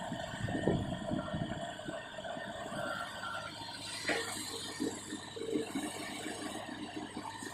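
Excavator running at work, a steady engine and hydraulic drone with irregular knocks and clatter from the working gear, the loudest about a second in and again around four seconds in.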